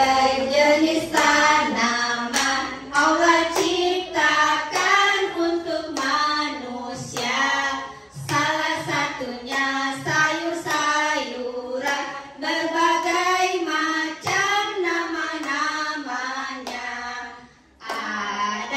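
A group of women singing a song together. Phrases follow one another with short breaths between them, and there is a brief gap near the end before the singing resumes.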